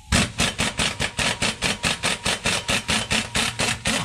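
Impact wrench hammering in a rapid, even rattle as it spins off the 13/16 bolt that holds the parking brake drum on a Freightliner step van's transmission output, stopping near the end once the bolt breaks free.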